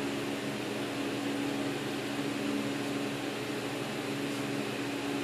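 Steady background hum with one low, even tone over a soft hiss, like a running fan or appliance.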